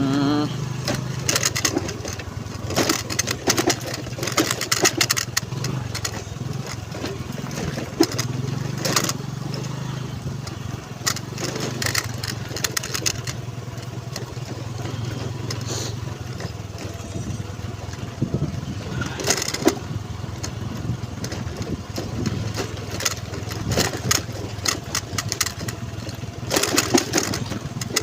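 Honda Navi's small single-cylinder engine running steadily while riding over a rough dirt track, with frequent short knocks and rattles from the bumps.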